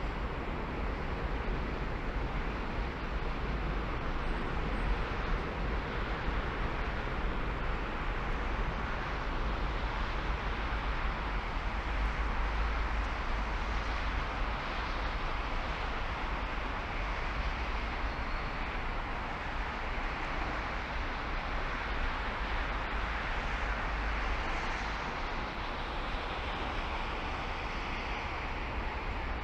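Car driving on the road: a steady rush of tyre and road noise over a constant low rumble, with no breaks or changes.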